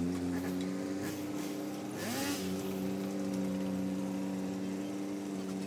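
Engine of a construction machine running steadily. About two seconds in there is a brief rising tone with a short burst of hiss.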